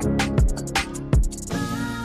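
Background music with a steady drum beat and sustained notes; the beat drops out about one and a half seconds in, leaving held tones.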